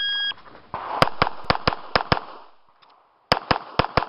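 A shot timer's start beep, followed by pistol shots: six in quick succession about a second in, a short pause, then four more near the end.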